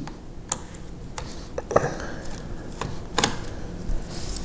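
Small sharp clicks and taps of a Phillips screwdriver on the metal hard-drive bracket screws inside a laptop's drive bay, about five separate ticks spread out, with a brief scrape about two seconds in.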